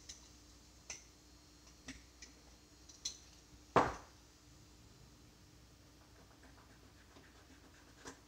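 A few faint clicks as a razor blade and the lanyard's metal hardware are handled. Nearly four seconds in comes one short, loud scrape as the blade slices off a paracord end.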